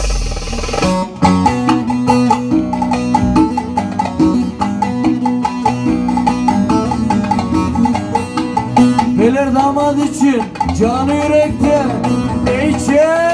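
Instrumental passage of Ankara oyun havası dance music played live. A bağlama plays a fast plucked melody, with bending notes in the second half, over steady darbuka and drum-pad percussion.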